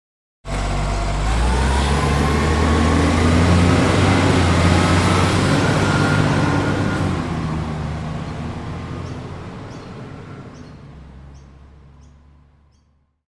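Truck engine running, cutting in suddenly about half a second in, its pitch rising early on, then fading out slowly over the second half as the truck moves away.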